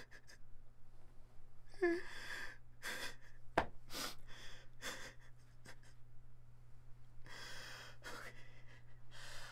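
A person's heavy, ragged breathing: a series of sharp breaths and gasps, one voiced about two seconds in. A low steady hum runs underneath.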